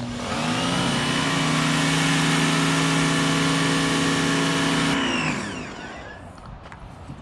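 Blue Clean 2000 PSI electric pressure washer starting up: its motor and pump whine quickly up to speed and run steadily under the hiss of the water spray. About five seconds in, the spray cuts off suddenly and the motor winds down to a stop.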